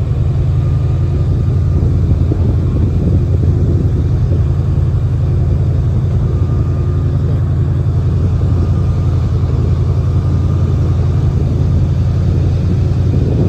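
Airboat engine and its big air propeller running, a loud, steady, deep rumble.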